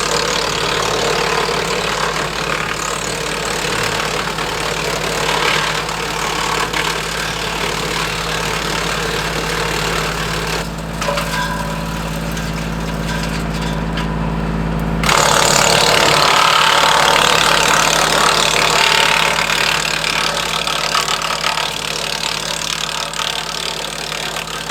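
Kubota L2501 compact tractor's diesel engine running steadily, driving a Woodland Mills WC46 PTO wood chipper. The sound changes and grows louder about fifteen seconds in.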